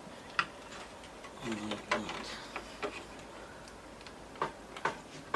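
Scattered sharp plastic clicks and knocks, about half a dozen, from power supply cable connectors being handled and fitted inside a desktop PC case.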